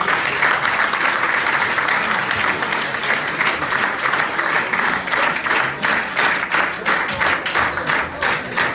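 Audience applauding, a dense clatter of many hands clapping that thins into more separate claps near the end.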